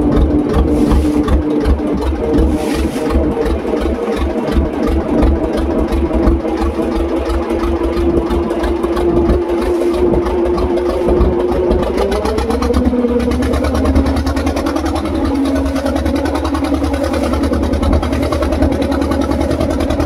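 A motorboat's engine running steadily under way, with a fast, even low pulse. Its pitch drops a step about twelve seconds in.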